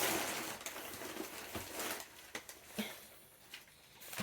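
Rustling and scattered light clicks of packaging and plants being handled, busiest in the first couple of seconds and then fading to a few soft ticks.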